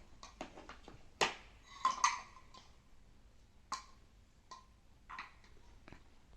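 Onion pieces being put into a vegetable chopper: about six irregular knocks and clatters, the sharpest a little over a second and about two seconds in.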